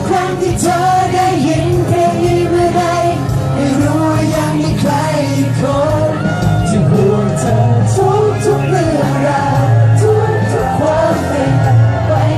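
Male singers performing a Thai pop song live into handheld microphones, with amplified music through PA speakers.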